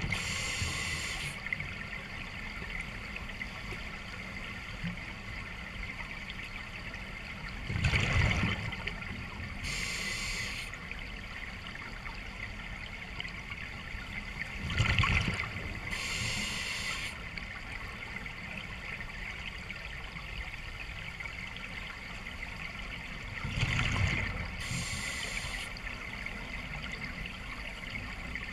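Water trickling and running steadily. About every eight seconds there is a low surge of water with a short splash a second later.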